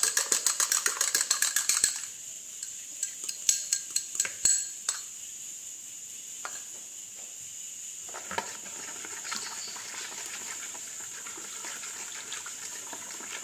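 An egg being beaten by hand, a utensil clinking against the dish in quick, even strokes at about seven a second, stopping about two seconds in. A few scattered clinks and taps follow.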